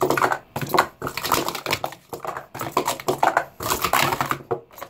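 Yellow Ultimate Stackers sport-stacking cups being stacked and unstacked at speed on a stack mat: a rapid run of plastic clacks as cups are set down and swept up, with the cups very squeaky as they slide against each other.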